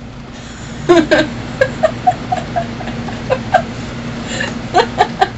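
A run of short, high-pitched voice sounds, loudest about a second in, then coming two or three a second over a steady low hum.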